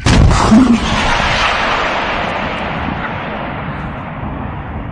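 A weapon fired at close range: a sudden loud blast, then a roar that slowly fades over several seconds.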